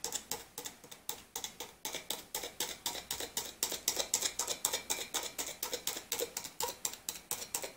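A needle punching holes in four layers of aluminium foil stretched tight over a hookah bowl: a quick, even run of sharp ticks, about five a second.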